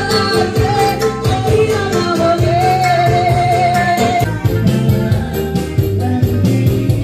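Live party music amplified through PA speakers: a woman singing into a microphone over electronic keyboard backing with a steady beat. About a third of the way in she holds one long, wavering note.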